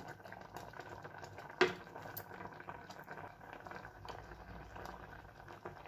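Thick rice-and-milk payesh simmering in a metal pot, with many small irregular bubbling pops. One sharper click comes about a second and a half in.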